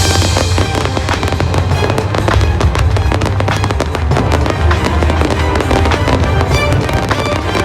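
Fireworks display going off in a dense barrage of rapid bangs and crackles over music with a heavy bass.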